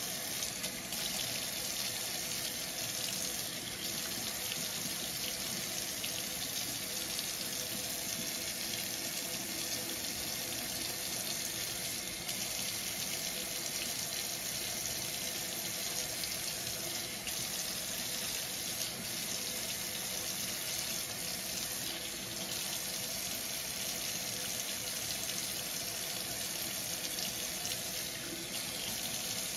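Kitchen faucet running steadily into a stainless steel sink, the stream splashing over a paintbrush held under it.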